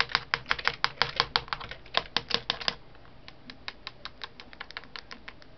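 Computer keyboard keys clicking under a pet parakeet's feet and beak: a quick, irregular run of clicks for the first few seconds, then sparser, fainter clicks.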